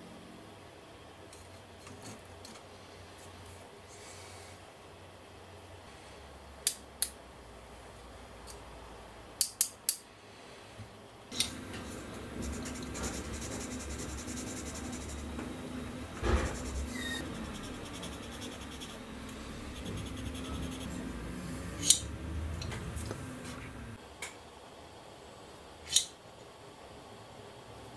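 Hard plastic model parts clicking and tapping as they are handled and fitted together. There are sharp clicks at scattered moments and a stretch of steady rubbing and handling noise through the middle.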